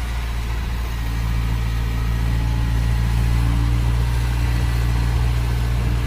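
Diesel engine of a heavy construction machine running steadily, a low, even hum.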